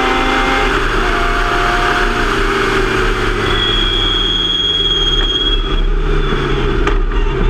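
Onboard sound of a Formula Mazda open-wheel race car running at a moderate, easy pace: wind rushing past the open cockpit over the rotary engine, whose pitch sags slowly as the car rolls along.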